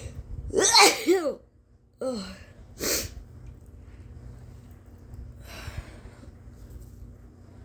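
A woman's forceful induced sneeze: a loud voiced burst with a falling cry about half a second in, then a short falling voiced sound and a sharp blast of breath near three seconds. A softer breath follows near six seconds.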